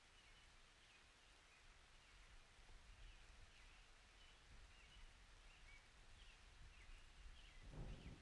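Near silence with faint high chirps; near the end a soft rustling scrape sets in as a spatula stirs dry flour and cocoa powder in a glass bowl.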